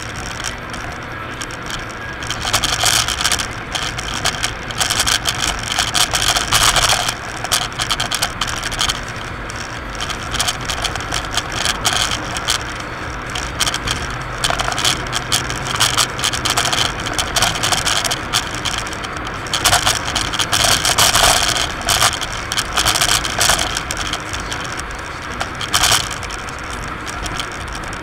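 Road noise inside a moving car, full of irregular clattering and rattling, with a low engine hum that fades out a little past halfway.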